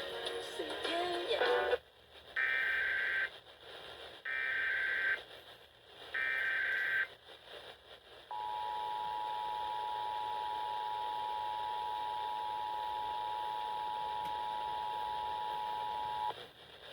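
Emergency Alert System test over FM radio. Station music cuts off about two seconds in, followed by three short, buzzy bursts of SAME header data. Then the two-tone EAS attention signal holds steady for about eight seconds.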